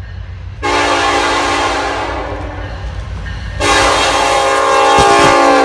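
Air horn of a Norfolk Southern diesel freight locomotive sounding two long blasts as the train approaches, over the low rumble of the train. Each blast is a chord of several tones: the first starts about half a second in and fades after about three seconds, and the second, louder one starts about three and a half seconds in and is still held at the end.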